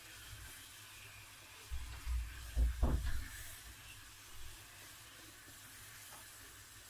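Sugar syrup boiling in a saucepan, a faint steady hiss as the melted sugar cooks toward caramel. About two to three seconds in comes a brief cluster of low thumps and knocks, the loudest sound.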